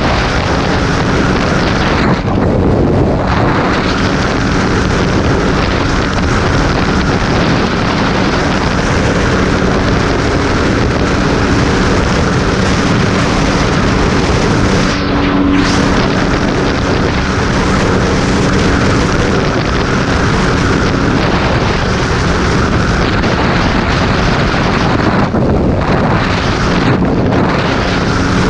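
Steady wind rush on a helmet-mounted microphone at highway speed, over a single-cylinder supermoto engine holding a steady cruising drone. The hiss thins briefly a few times.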